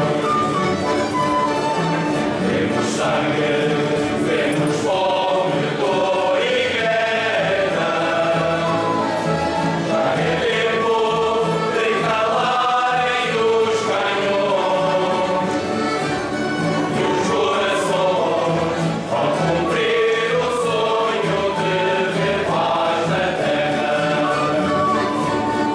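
A group of voices singing a slow, hymn-like song together, continuously and without pause.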